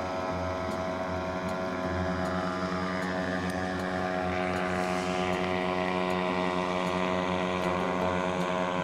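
Small two-horsepower outboard motor running steadily at speed, pushing a light inflatable boat across the water.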